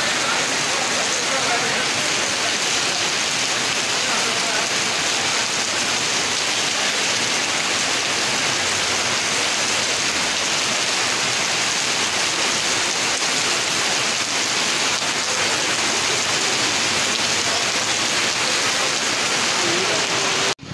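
Steady rain falling on a paved courtyard: a dense, even hiss that cuts off abruptly near the end.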